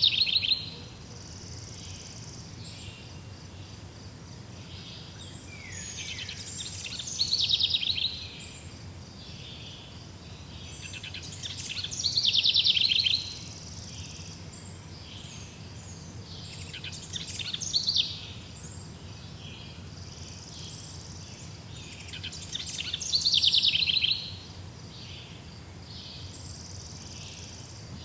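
A songbird repeating a short, fast trilled song about every five to six seconds, four times. Each phrase swells and then stops abruptly. A steady low background hum runs underneath.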